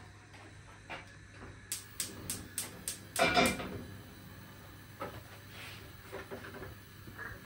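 Kitchen handling sounds: a quick run of light clicks about a third of a second apart, then a louder short clatter about three seconds in, followed by a few softer knocks, like containers, lids or utensils being picked up and put down during cooking.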